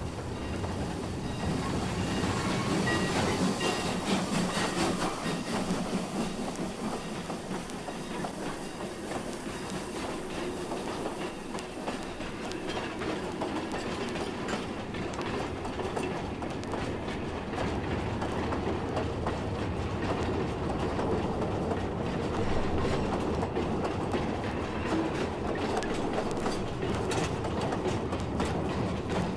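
Steam train of the Bonhomie and Hattiesburg Southern Railway rolling past, its cars clicking over the rail joints. The sound swells over the first few seconds, then stays steady.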